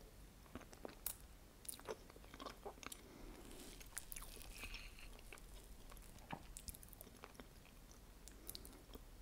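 Close-miked mouth sounds of New York cheesecake with caramel sauce being eaten: soft, wet chewing with scattered clicks and lip smacks, a few per second.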